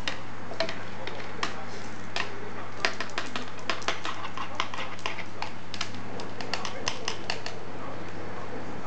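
Irregular light clicks and taps of a plastic cat-wand toy with tinsel knocking against a plastic stool and a hard tiled floor, over a steady low hum.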